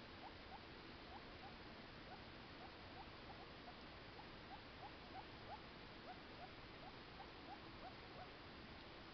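Guinea pig licking a person's hand: faint, short little sounds coming about three a second over a steady hiss.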